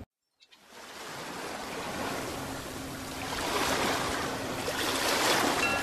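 Ocean surf washing onto a beach, fading in after a brief silence and swelling in slow surges.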